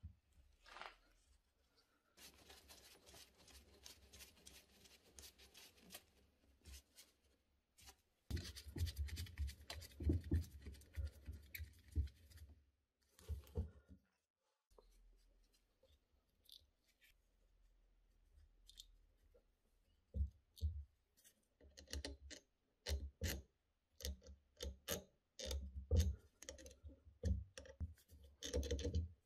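Gloved hands handling the cast-iron lower body of a Bosch K-Jetronic fuel distributor. There is soft rustling and scraping at first, then a louder stretch of irregular clatter, and from about two-thirds of the way in a run of small sharp clicks and knocks as a small part is worked into one of its ports.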